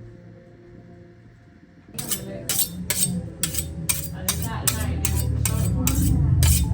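Music that is quiet at first, then starts a steady beat of sharp percussive hits about two seconds in, roughly two or three a second, over a building bass.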